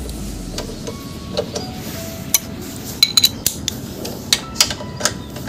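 Sharp metal clinks and taps of a steel T-handle socket wrench knocking against a bolt and the shifter bracket as the bolt is fitted, a cluster of irregular clicks in the second half.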